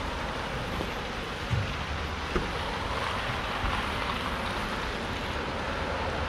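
City street traffic noise: a steady rush of passing vehicles, swelling as one goes by about three seconds in, with two short low thumps early on.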